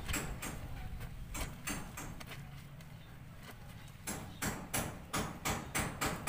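Wet clothes rubbed together by hand in a basin of soapy water: a run of short swishing scrub strokes, about three a second, easing off for a moment in the middle and picking up again.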